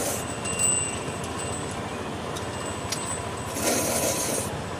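A person slurping black-bean instant noodles from a paper bowl, with one long slurp near the end, over a steady hum of street traffic. A faint high ringing tone sounds about half a second in.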